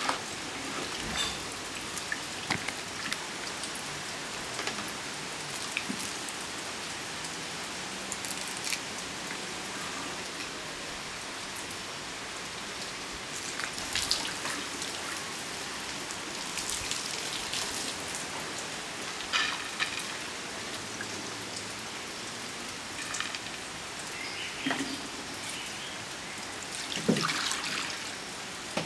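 Water splashing and dripping as hands swish and rub green peppercorns in a clay pot of water: an even watery wash with scattered small splashes and drips.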